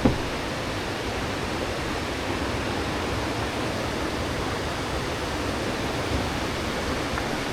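Steady rushing of water, an even, unbroken wash of sound.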